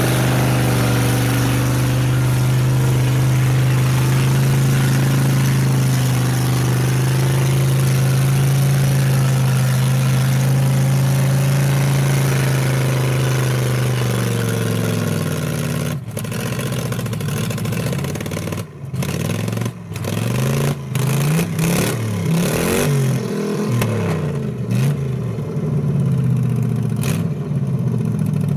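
Chevrolet pickup's engine running hard at steady high revs in deep mud. From about fourteen seconds in, it revs up and down again and again, with a few sharp momentary drops.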